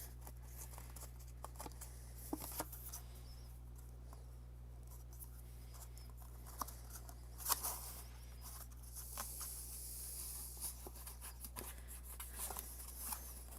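Cardstock paper being handled: scattered soft rustles and light taps as glued pieces of a paper box are pressed together, over a steady low hum.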